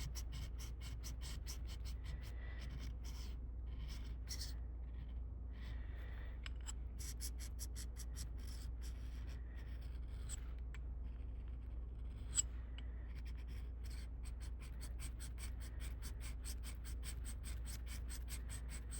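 Steel ice auger blade being stroked by hand over a 600-grit sharpener, a run of quick, even scraping strokes, honing the blade's edge. A steady low hum runs underneath.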